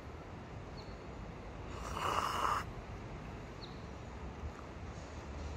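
A person slurping instant cup noodles: one short, noisy slurp about two seconds in, over a steady low outdoor rumble.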